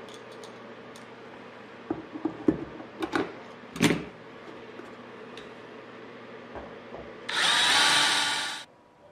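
A few sharp clicks and taps of metal, then a cordless drill runs for about a second and a half, boring a corner hole through an inspection-cover ring and the aluminium wing skin beneath it.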